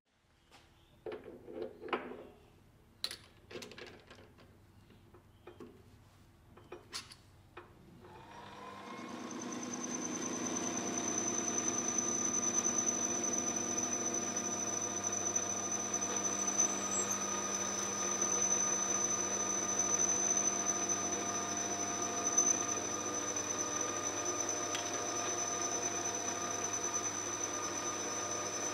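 A few scattered clicks and knocks, then about eight seconds in a metal lathe spins up and runs steadily, with a high steady whine, while turning a solid aluminium bar.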